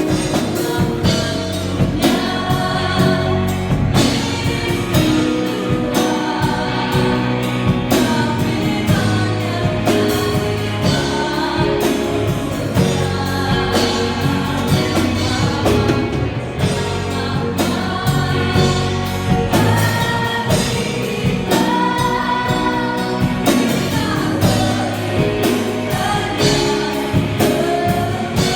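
A choir singing a Christian gospel song over instrumental accompaniment with a steady beat.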